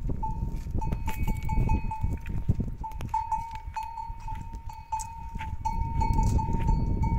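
A bell hung on a walking camel rings in quick, uneven strokes, about four a second, each one a clear, steady tone. A loud low rumble runs underneath.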